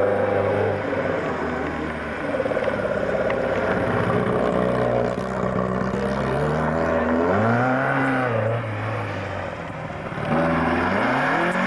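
Car engine being driven hard on a loose dirt course: a steady loud note, then the revs swinging up and down about seven to nine seconds in, and climbing again near the end.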